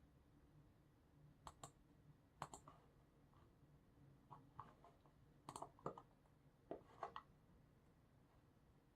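Faint, scattered clicks of a computer mouse and keyboard keys, a few at a time with pauses between, rather than continuous typing.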